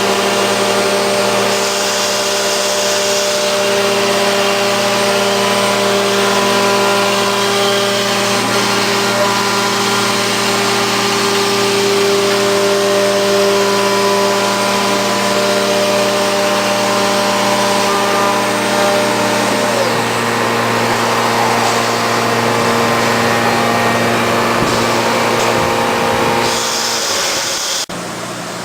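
Woodworking CNC machining centre running steadily, its spindle motor whining with several steady tones over a noisy rush; some of the tones drop out about two-thirds of the way through, and the sound dips briefly near the end.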